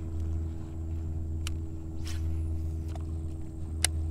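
Steady low hum of the kayak's electric Minn Kota trolling motor, with a few short sharp ticks, the sharpest near the end.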